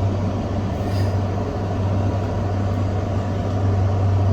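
Steady low hum with an even airy rush over it, from running air-moving machinery such as an air conditioner or fan.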